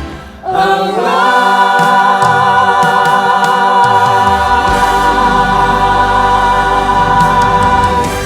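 Choir with accompaniment holding the song's long final chord. After a brief dip about half a second in, the voices swell up and sustain with vibrato, a low bass note joins partway through, and the chord begins to fade right at the end.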